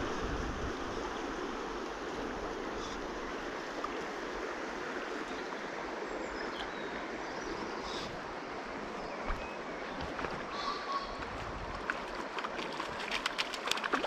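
Shallow river flowing steadily over stones, an even rush of water, with a quick run of small clicks near the end.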